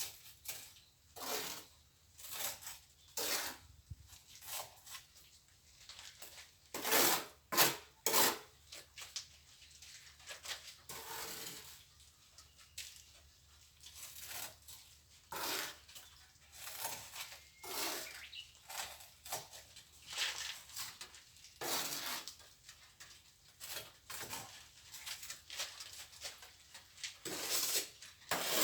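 Plastering trowel scraping and smoothing cement mortar in a string of irregular short strokes.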